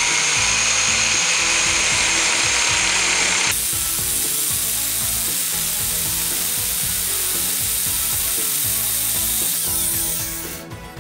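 Angle grinder with an abrasive cut-off disc cutting through a steel pipe: a steady high whine for the first three and a half seconds, then a rougher, noisier grind as the disc works through the metal, fading near the end.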